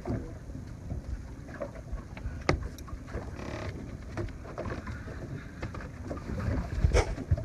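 Low wind rumble on the microphone aboard a small boat, with scattered knocks and bumps, a few of them sharp, about two and a half seconds in and again near the end, and a brief hiss in the middle.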